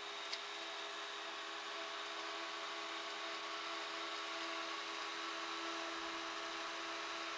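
Small computer cooling fan running with a steady whir and hiss, a few steady hums riding on it, and one light click shortly after the start.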